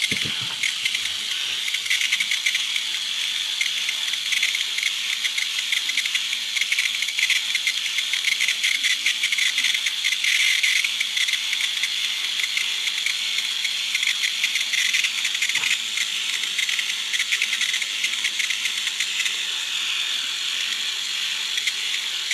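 Small toothbrush motor held by hand against the plastic gear train of an electric turtle bath toy, driving its gears with a steady high-pitched buzz and a fine rattle of plastic gear teeth. It is a stand-in for the toy's own motor, which could not be got working.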